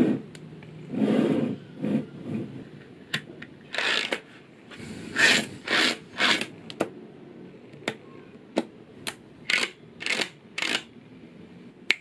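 Small neodymium magnetic balls clicking and clattering as panels of them are snapped together and set down by hand: sharp single clicks mixed with short rattling bursts, a dozen or so at irregular intervals.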